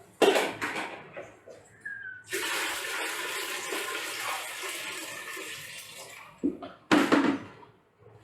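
Water poured onto a MacBook laptop: a sudden splash at the start, then a steady pour for about four seconds, ending with two more short splashes.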